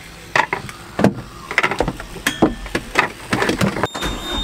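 Irregular knocks, clunks and thumps of crew working about a sailboat's deck and cockpit. Near the end, a steady high-pitched beep starts from the engine control panel's warning buzzer.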